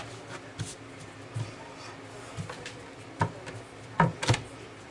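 Scattered knocks and clicks of things being handled, the loudest two close together near the end, over a steady low hum.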